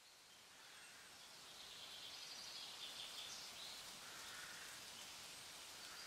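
Faint outdoor ambience with a few faint bird calls, fading in from silence over the first second or two.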